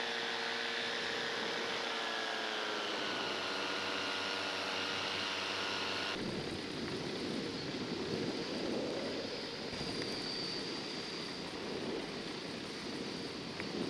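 Paramotor engine and propeller running steadily, the pitch easing down a little about two to three seconds in. About six seconds in the engine note gives way abruptly to a steady rush of wind.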